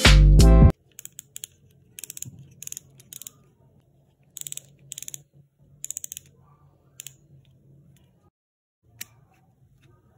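Havells BT5301 beard trimmer's length-adjustment dial turned by hand, ratcheting through its settings in several short runs of sharp clicks with pauses between, after background music cuts off under a second in.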